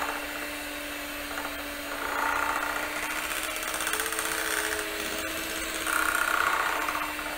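Electric hand mixer running steadily, its beaters whirring through cake batter in a bowl. It gets a little louder for a moment about two seconds in and again near six seconds.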